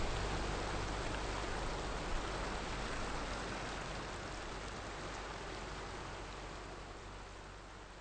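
Small waves washing up over a flat sandy shore: a steady hiss of surf that slowly fades out.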